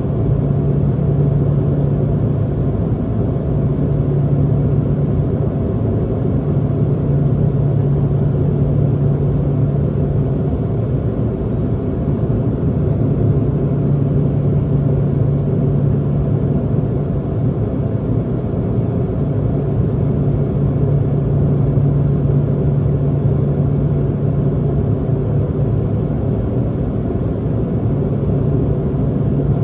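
Steady cabin drone of a small turboprop plane in cruise: engine and propeller noise with a low hum that swells and fades every few seconds.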